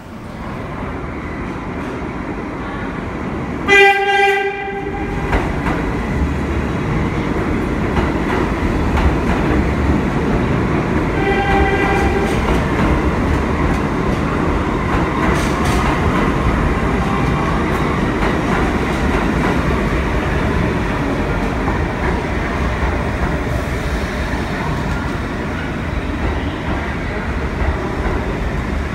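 NYC subway train sounding its horn in a loud blast about four seconds in and a shorter, weaker one about eleven seconds in, then rolling past the platform with a steady noise of wheels on rails.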